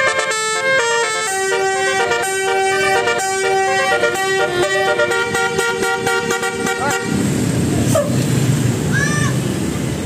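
Bus telolet horn, a set of electric air horns, playing a quick Basuri melody of short stepped notes that cuts off suddenly about seven seconds in. A steady rumble of engine and street noise follows, with a couple of short high arched calls near the end.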